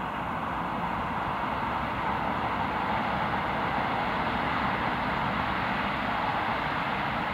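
LMS Stanier Black Five 4-6-0 steam locomotive 44871 approaching under steam: a steady rushing exhaust and running noise that slowly grows louder.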